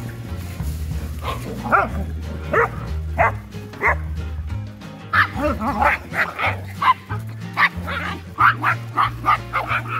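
Dogs barking and yipping in short, sharp calls while play-fighting, starting about a second in and coming faster in the second half, over background music.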